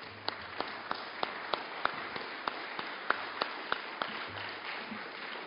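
Audience applauding: an even wash of clapping from many hands, with a few nearer, louder claps standing out about three times a second.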